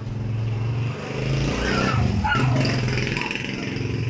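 Motorcycle engine running with a steady low hum, its pitch dipping and rising briefly about halfway through as it is revved.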